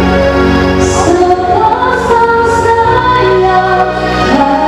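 A woman singing through a handheld microphone over instrumental accompaniment, holding and gliding between sung notes with a steady bass line underneath.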